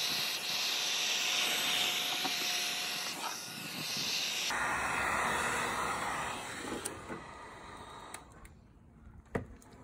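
Heat gun blowing over wet epoxy resin with a steady hiss, pushing the white resin into lacy wave foam. The hiss changes abruptly about halfway through, then dies away over the last two seconds, with a single click near the end.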